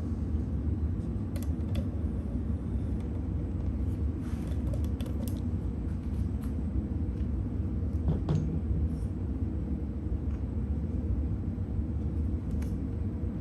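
Steady low background rumble, with a few faint clicks and scrapes of a rubber screen retainer spline being pressed into the groove of a screen door frame.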